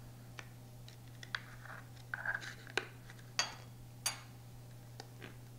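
Metal table knife prying and scraping inside a plastic jar lid to lift out its liner disc: scattered small clicks and scrapes, a crinkly rustle about two seconds in, then three sharp snapping clicks as the liner comes free.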